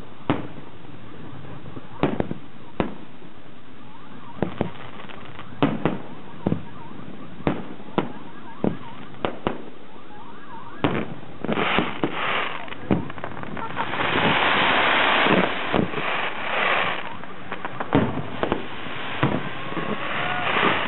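Aerial fireworks shells bursting: single sharp bangs a second or so apart, then from about eleven seconds in a dense barrage of overlapping bursts, loudest around fourteen to seventeen seconds in.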